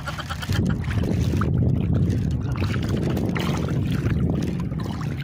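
Shallow seawater sloshing with a steady low rumble and a few faint splashes, mixed with wind on the microphone.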